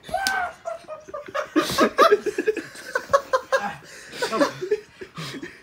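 People laughing in short, breathy bursts.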